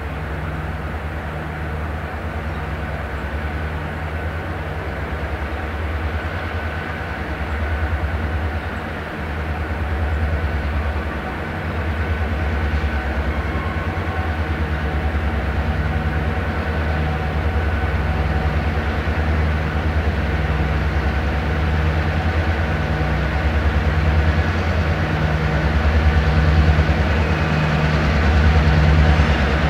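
Diesel locomotive engine running with a low, steady throb as the train approaches, growing gradually louder.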